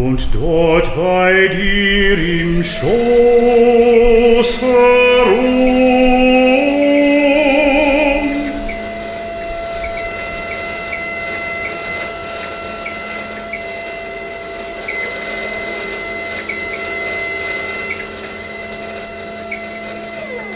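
A man sings a classical recitative line with vibrato over sustained accompaniment, moving through several pitches and ending on a long held note about eight seconds in. A steady held chord then carries on more quietly until it cuts off at the end.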